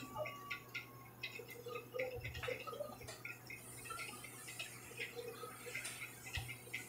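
Faint, irregular small clicks and ticks of a plastic pry tool working at the opened Oppo Reno 5 5G's board and frame, over a low steady hum.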